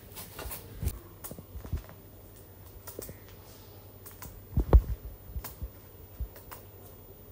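Scissors snipping through a pigeon's wing feathers: a scatter of short, sharp snips, among low thumps of the bird and hands being handled, the loudest thump a little past halfway.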